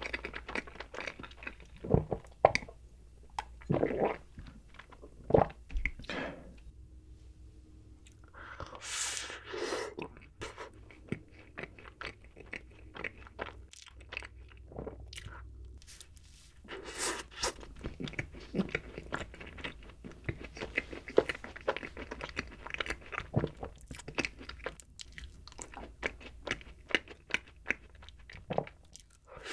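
Close-miked eating sounds: mouth chewing and biting, with many small sharp crunches. After a quieter stretch in the middle, a chocolate cookie ice cream sandwich is bitten and chewed through the second half.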